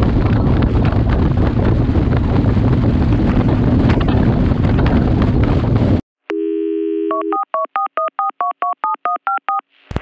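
Wind buffeting the microphone over a motorcycle's engine rumble while riding; about six seconds in it cuts off. A telephone dial tone follows for about a second, then about eleven quick touch-tone dialing beeps.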